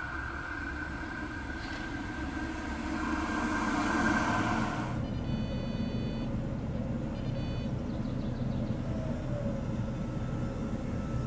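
RBS Be 4/10 tram approaching through a curve: running noise with a steady high-pitched whine, growing louder to a peak about four seconds in, then cutting off sharply. After that a lower steady hum, with two short runs of high beeping tones.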